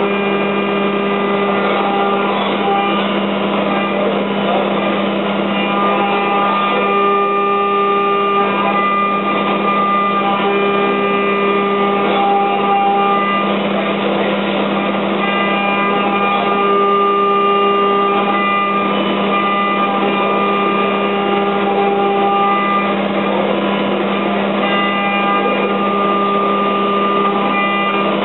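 GROB G350 five-axis machining centre milling in simultaneous five-axis motion: a steady hum, with higher whining tones from the spindle and axis drives that come and go every few seconds.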